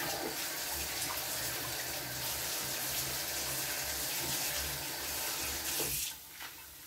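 Kitchen tap running into the sink while hands rinse something under the stream, then turned off about six seconds in.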